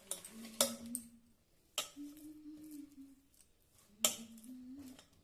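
Kitchen utensils and dishes clinking and knocking: three sharp clinks spread over a few seconds, with a faint low steady tone between them.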